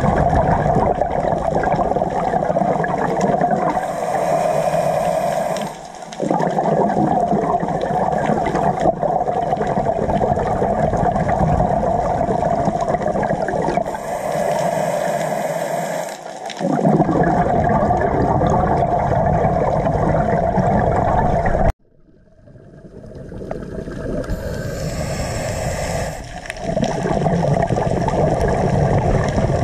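Scuba diver breathing through a regulator, heard through an underwater camera housing: long rushes of exhaled bubbles broken by short hissing inhalations about every ten seconds. The sound cuts out suddenly about three quarters of the way through and fades back in.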